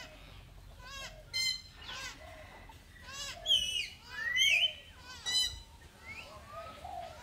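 Long-tailed macaques calling: a string of short, high-pitched squeaks and chirps, with one longer squeal that rises and falls about four and a half seconds in.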